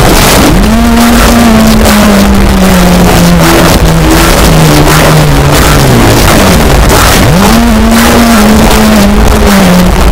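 Loud, heavily distorted brutal death metal: a low riff slides up and then steps down in pitch, twice, over dense, rapid drumming.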